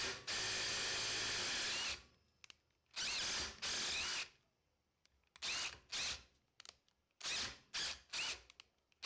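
Cordless impact driver on its middle speed setting, driving a drill-tap bit that cuts threads into quarter-inch steel plate. It runs first in one long burst of nearly two seconds, then in about seven short trigger pulses, each with a motor whine that rises and falls.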